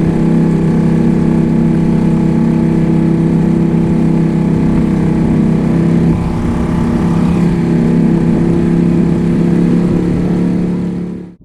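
Small outboard motor driving a rubber dinghy, running steadily at an even pitch. The sound cuts off suddenly at the very end.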